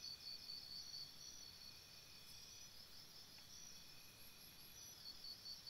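Near silence with faint, high-pitched insect chirping that pulses about four times a second, fades for a few seconds after the start and comes back near the end.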